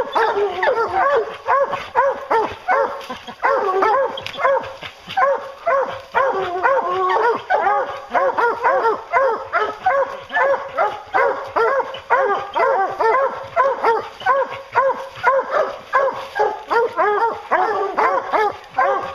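A pack of English hounds baying together, loud and without a break, their barks overlapping. The dogs are barking treed at the foot of a tree, the sign that they have the bear up it.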